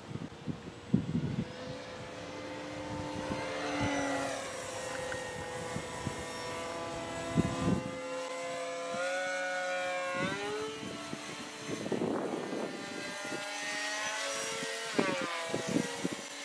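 Electric RC model airplane's brushless motor and propeller whining in flight, the pitch rising and falling as the throttle changes and the plane passes. Wind buffets the microphone in gusts.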